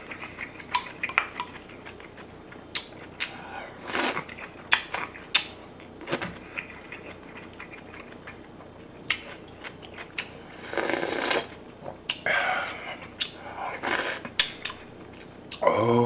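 Wooden spoon knocking and scraping against the pot while scooping kimchi-jjigae broth, in sharp separate clicks. Between them come a few longer, noisy slurps of the hot broth, mostly in the second half.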